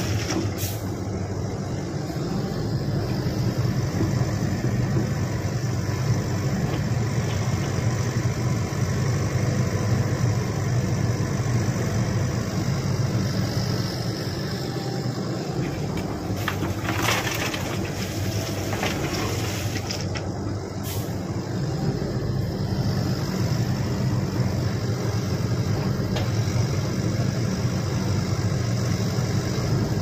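Shantui SE135 crawler excavator's diesel engine running steadily as it swings and works its bucket while loading a dump truck. A few brief bursts of noise come about halfway through.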